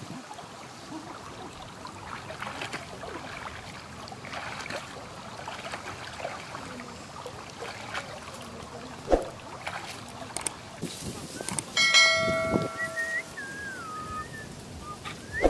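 Faint splashing of legs wading through shallow river water over a low outdoor hiss. About twelve seconds in, a short bell-like notification chime rings out, from the subscribe-button sound effect. It is followed by a few brief whistling glides.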